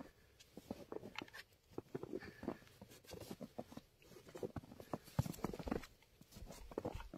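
Faint, irregular crunching and rustling as people creep forward over snow, their clothing, a leather jacket among it, brushing as they move.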